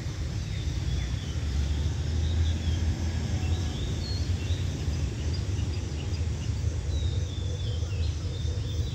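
Small birds chirping and twittering in short high calls over a steady low rumble.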